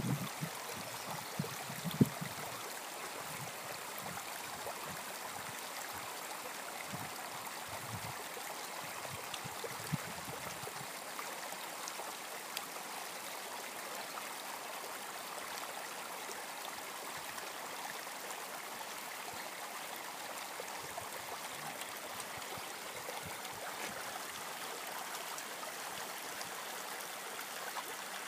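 Small creek steadily trickling and gurgling over rocks. Low wind rumbles buffet the microphone through roughly the first ten seconds.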